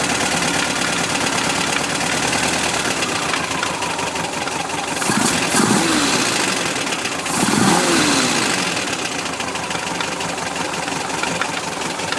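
1973 VW Bus's air-cooled Type 4 flat-four engine idling, blipped twice to a brief rev that rises and falls back, first about five seconds in, then about seven and a half seconds in. It runs with a strange knock that the owner can't trace, heard both cold and hot, which seems to come from around the distributor.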